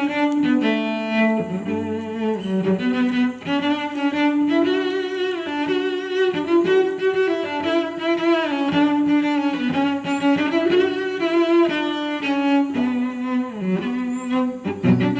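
Music on bowed string instruments, sustained notes moving from one pitch to the next in a melody.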